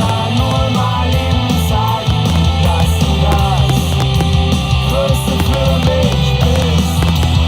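Loud rock music with a heavy, steady low end, played over the fireworks show's sound system.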